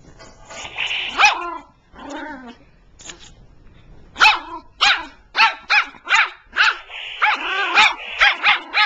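Small long-haired dog growling, then barking in a quick run of short barks, about two a second, from about four seconds in, with a longer growl among them near the end.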